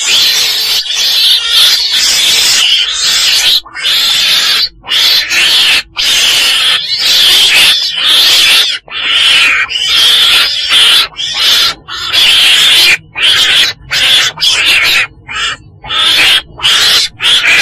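Calls of a weasel (Mustela, Vietnamese 'chồn đèn'): loud, raspy calls in quick runs broken by brief pauses, of the kind played as a lure for trapping.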